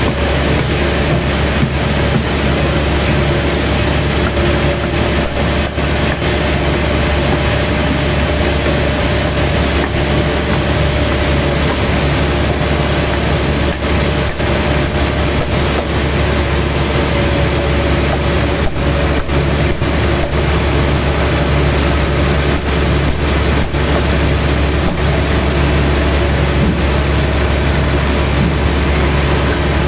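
Sawmill machinery running steadily: a loud, constant engine-like drone with a few held tones and no pauses.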